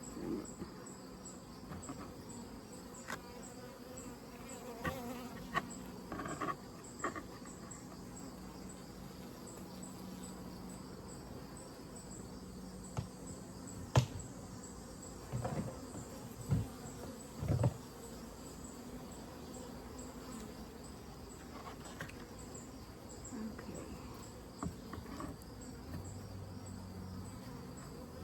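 Honeybees buzzing steadily around an open Layens hive during a frame inspection, over a high insect chirping that repeats in a fast, even rhythm. A few sharp knocks from the hive's wooden parts being handled break in, the loudest about halfway through and several more a couple of seconds later.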